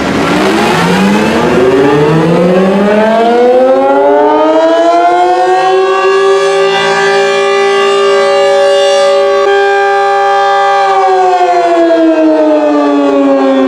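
Loud tornado (outdoor warning) siren winding up, holding a steady wail for several seconds, then starting to wind down near the end.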